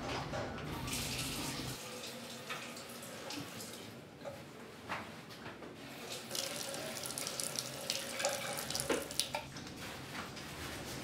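Tap running into a washbasin while hands scoop and splash the water, with a cluster of louder splashes about three-quarters of the way through as the face is washed over the basin.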